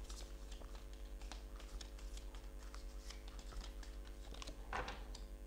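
A deck of tarot cards being shuffled by hand: a stream of light, quick clicks of card edges, with a louder rustle of cards about five seconds in, over a faint steady hum.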